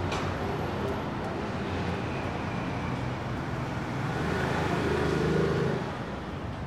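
Steady city street traffic rumble. One vehicle's engine grows louder, passes about four to five seconds in, then fades.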